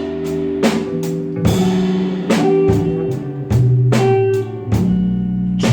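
Live band playing an instrumental passage between sung lines: guitar, a bass line and a drum kit keeping a slow, steady beat.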